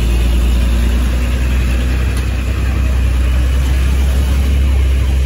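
Heavy diesel engine of a loaded Hino dump truck running steadily with a deep hum as it climbs round a hairpin bend.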